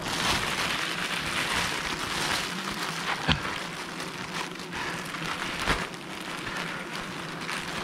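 Clear plastic bag crinkling and rustling as honeycomb is pushed into it, with two sharp clicks, about three seconds in and near six seconds.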